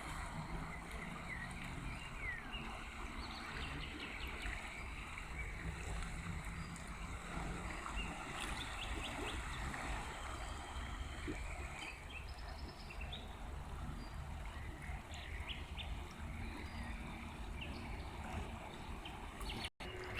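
A river flowing steadily, with birds chirping and singing in short calls and trills over it. The sound cuts out for an instant near the end.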